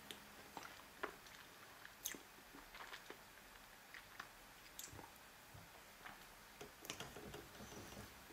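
Faint chewing as a person eats a spoonful of lemon sponge pudding, with a few light, scattered clicks.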